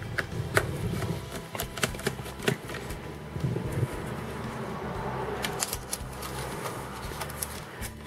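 Small metal clicks and ticks of a screwdriver working screws out of a laptop motherboard, scattered irregularly, with handling sounds between them.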